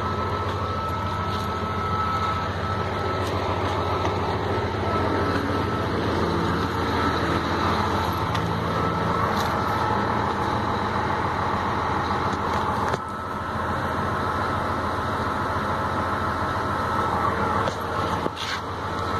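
Diesel truck engine running steadily, with a thin constant whine above the engine note and a brief dip in level about two-thirds of the way through.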